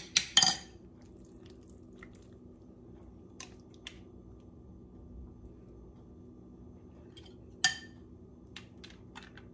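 A metal spoon clinking against a ceramic bowl while stuffing is scooped out: a few sharp clinks right at the start, two light taps in the middle, and one ringing clink near the end. A steady low hum runs underneath.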